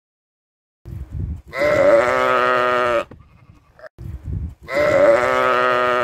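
A sheep bleating: two long, wavering baas of about a second and a half each, the first about a second and a half in and the second near the end, each with a short low noise just before it.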